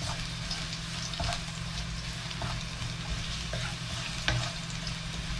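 Sliced garlic sizzling in hot oil in a frying pan while it is sautéed with a wooden spatula, with occasional scrapes and taps of the spatula against the pan.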